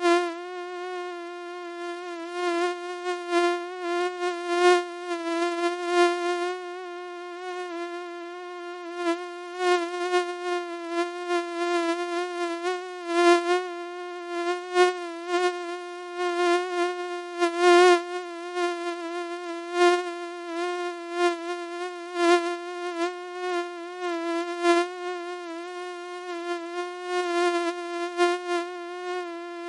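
Mosquito buzzing in flight: a steady whine with many overtones, its pitch wavering slightly and its loudness swelling and fading irregularly.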